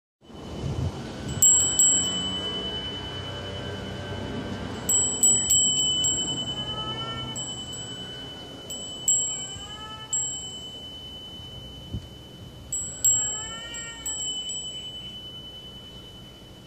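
Japanese wind chime (fūrin) rung by the breeze: the clapper strikes the bell in small clusters of quick, bright tings every few seconds, each leaving a high, clear ringing tone that fades slowly.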